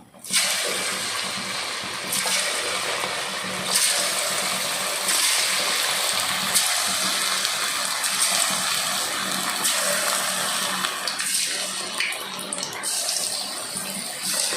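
Coated chicken 65 pieces sizzling in hot frying oil as they are dropped into the pan one by one. The sizzle starts suddenly and swells a little as more pieces go in.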